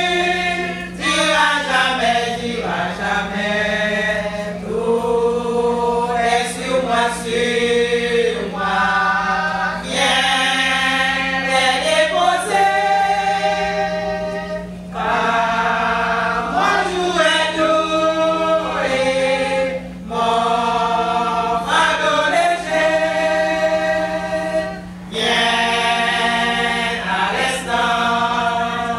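Women's church choir singing a cappella, in phrases with short breaks between them, over a steady low hum.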